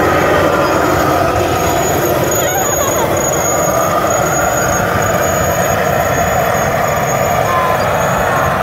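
Massey Ferguson 5713 S tractor's diesel engine running steadily under load while pulling a six-row pneumatic planter through tilled soil. A thin, steady, high whine joins in about a second and a half in.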